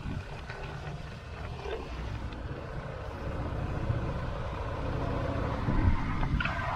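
Motorcycle on the move: engine rumble mixed with wind noise on the bike-mounted camera's microphone, growing gradually louder toward the end.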